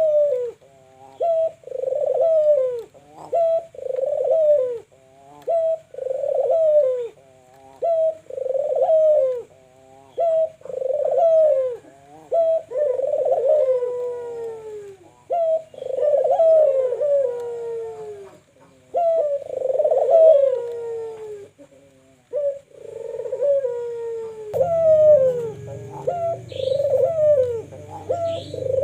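Two puter doves (ringneck/Barbary doves) cooing over and over, about one coo a second, their calls overlapping, as a lure call to set other doves cooing. Near the end a low hum comes in and a few short high chirps sound.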